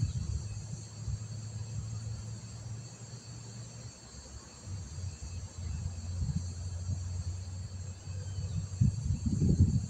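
Crickets chirring steadily in the background, with a low rumble underneath that grows louder near the end.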